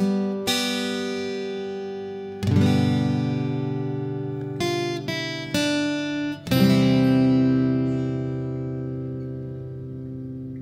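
Background music: acoustic guitar picking notes and strumming chords, each chord left to ring and decay, the last one fading out near the end.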